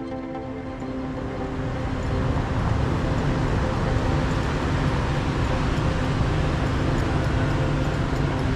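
Road traffic: a steady din of vehicle engines and tyres with a low engine hum, growing louder over the first two seconds and then holding.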